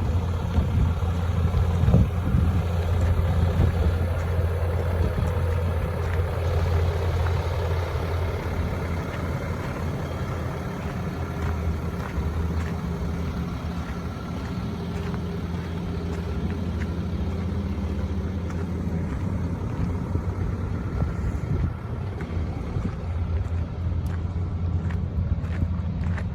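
Ram 5500's 6.7-litre Cummins inline-six turbo-diesel running steadily, a low even engine hum with no sharp changes in pitch.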